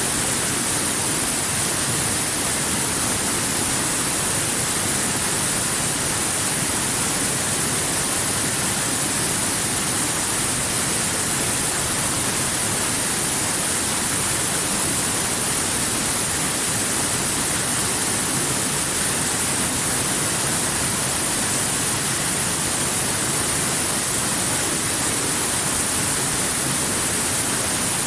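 Waterfall: a steady, unbroken rush of falling water with a strong high hiss.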